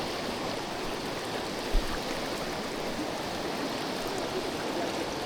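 The Arenal River rushing steadily over its bed, with a single brief low thump about two seconds in.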